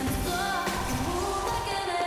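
Girl-group pop song playing from a music video: female vocals singing over a steady beat.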